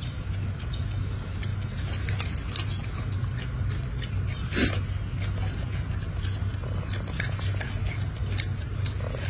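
A young monkey chewing and tearing crisp lettuce leaves: a run of small crunchy clicks, over a steady low hum. One louder, brief noise about four and a half seconds in.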